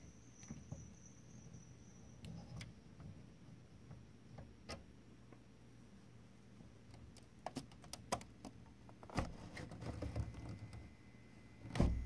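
Faint, irregular clicks and taps, a few at a time, the loudest cluster near the end, over a low steady hum.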